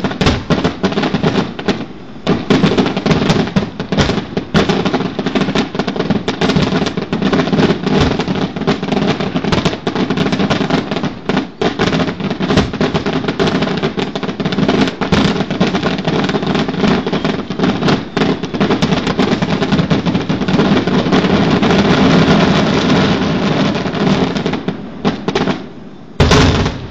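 Aerial fireworks barrage in its finale: rapid, near-continuous shell bursts and crackling. It ends with a very loud last volley near the end, after which the bangs stop.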